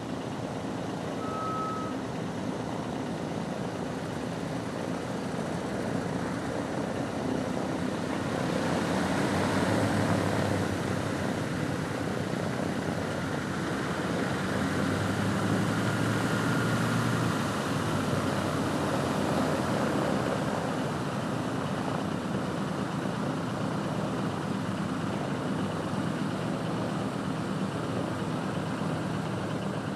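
The four Pratt & Whitney R-1830 Twin Wasp radial engines of a B-24J Liberator running as it taxis, a steady propeller drone that swells twice, about a third of the way in and again just past the middle.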